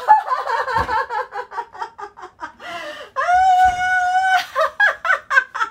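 A dog whining and yelping in quick short cries, then one long held whining howl about three seconds in, followed by more short whimpers. It is fretting because someone it wants to follow has just left the house.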